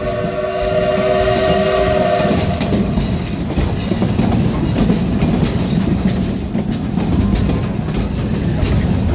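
A train whistle sounds a chord of several steady tones that ends about two and a half seconds in. Under it runs the steady rumble of the moving train, with the clicking of the cars on the rails.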